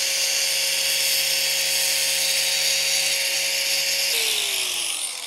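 Angle grinder running at full speed, shaving a corner of an acrylic sheet into a rounded radius with a steady whine. About four seconds in it is switched off, and the whine falls in pitch as the disc spins down.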